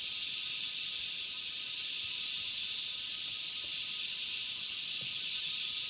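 Steady high-pitched hiss, even and unchanging, with no other clear sound.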